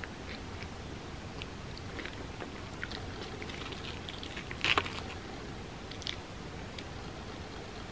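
Close-miked chewing of crispy fried mochi bread: small crackly crunches throughout, with one louder crunch a little after halfway.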